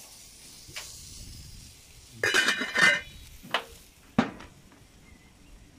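Stainless steel cookware clattering: a metal pot lid set down on the pot with a ringing clang, and the gas grill's metal hood shut, followed by a couple of sharp knocks.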